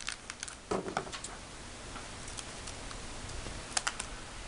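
A few light clicks and a knock as small candy-kit packets and a thin plastic mould tray are handled on a tabletop, over a steady hiss.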